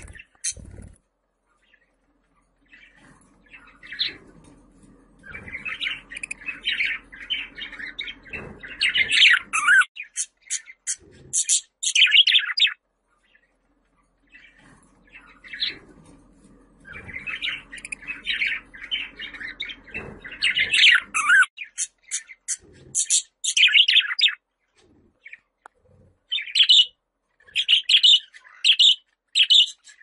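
Budgerigar warbling and chirping in two long, fast chattering bouts, then a string of separate short chirps near the end, with brief quiet gaps between.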